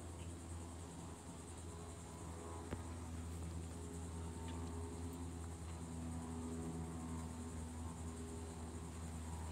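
Outdoor ambience: a steady, high insect chorus over a steady low hum, with one faint click about three seconds in.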